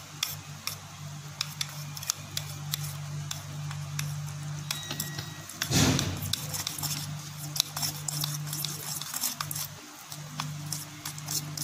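Tint brush stirring hair-bleach powder and developer in a plastic tint bowl: irregular small clicks and scrapes, with one louder scrape about six seconds in, over a steady low hum.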